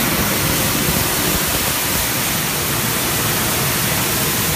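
High-pressure water spray from a caged cleaning nozzle blasting the walls of a concrete manhole: a steady rushing hiss with a low rumble underneath.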